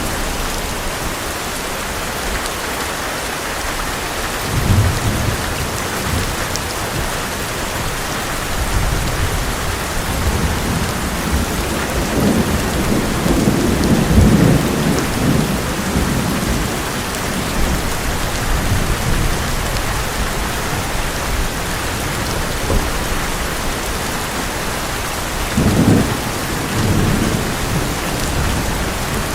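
Heavy rain falling steadily on an old metal roof, with rolls of thunder. There is a short rumble about five seconds in, a longer one from about nine to sixteen seconds that is loudest near fourteen seconds, and another near the end.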